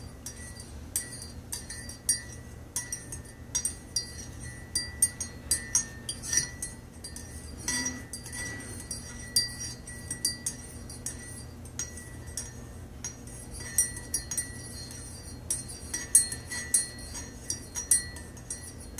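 Metal teaspoon stirring coffee in a ceramic mug, clinking against the mug's inside wall in irregular strikes, about two or three a second, each with a faint ring.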